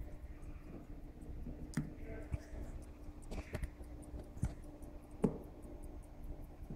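Gold pocket watch ticking quickly, about five ticks a second, with several sharper clicks and knocks from the case being handled, the loudest about five seconds in.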